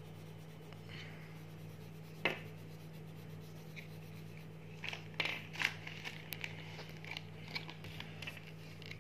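A coloured pencil scratching faintly on a colouring book page over a steady low hum. There is a sharp tap a couple of seconds in and a cluster of small clicks and knocks around the middle, as the pencils are handled on the table.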